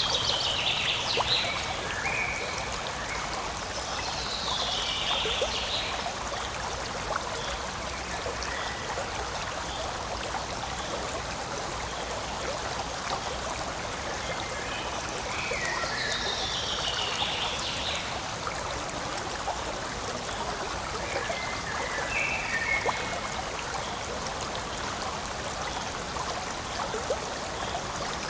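A forest stream running and trickling steadily. Now and then a bird calls with short falling phrases, about four times.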